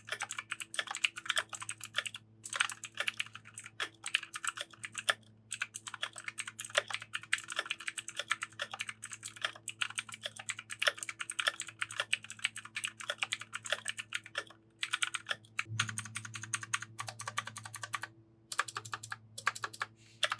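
Fast typing on a 60% mechanical keyboard with Otemu clicky blue switches: a dense run of sharp clicks broken by a few short pauses. The keystrokes carry a big echo, which the typist puts down to the hollow plastic body.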